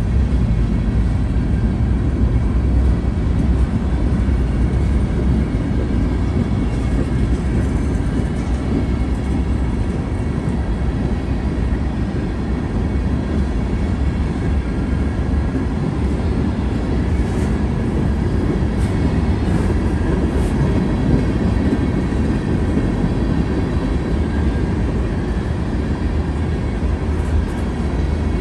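Freight train cars rolling past: a loud, steady rumble of steel wheels on the rails.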